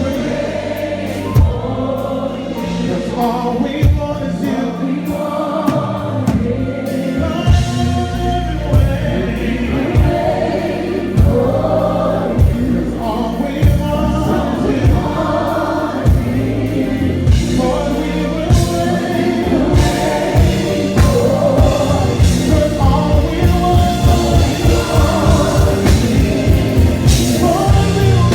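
Live gospel worship music: a choir singing over a band with bass and drums, the drum hits growing busier in the second half.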